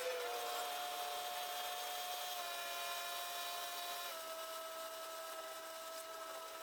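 Small power tool running with a steady high whine, its pitch stepping slightly up and down a few times as the load on it changes.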